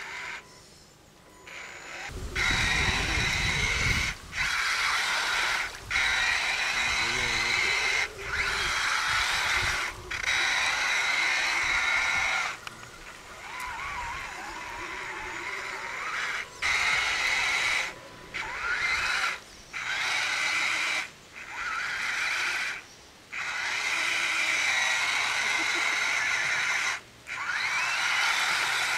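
Electric motor and gearbox of an RC scale off-road truck whining in repeated bursts of throttle, on and off about a dozen times, as it struggles through deep mud. Its tyres churn and splash muddy water.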